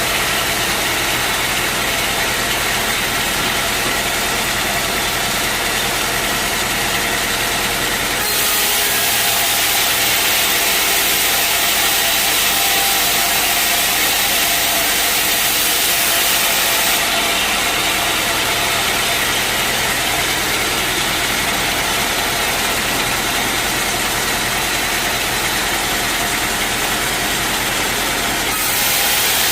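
Sawmill machinery running steadily: a motor's hum with a loud, even saw hiss over it. The hiss turns brighter and a little louder suddenly about eight seconds in, drops back about halfway through, and rises again just before the end.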